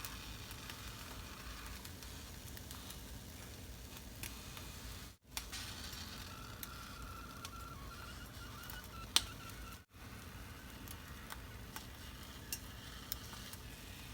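Egg toast frying in a pan: a soft, steady sizzle with a few light clicks, the sharpest about nine seconds in.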